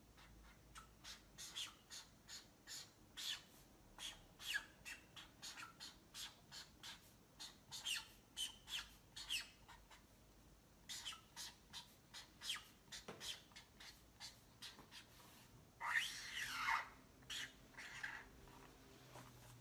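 Marker pen writing on a flip board: a quick, irregular run of short squeaky strokes, with a longer, louder squeaking stretch near the end.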